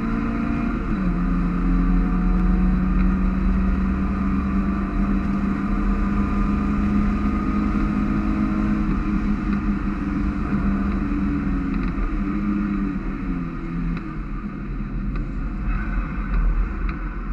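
Mazda MX-5 race car's four-cylinder engine running hard on track, heard from inside the open cockpit over a steady low rumble. The engine note drops about a second in, holds steady, then falls away in steps between about twelve and fifteen seconds in as the car slows.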